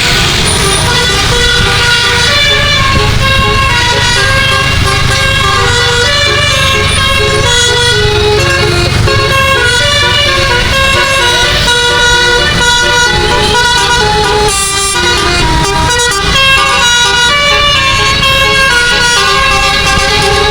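Basuri 12-note musical air horn (bus "telolet") playing a tune, a quick run of changing notes, over the low rumble of the bus's engine.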